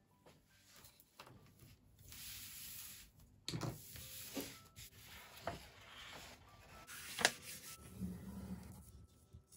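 Hands sliding and handling a sheet of paper and a plastic set square on a tabletop: a rubbing swish, then several light knocks and taps, the sharpest about seven seconds in, with some paper rustle near the end.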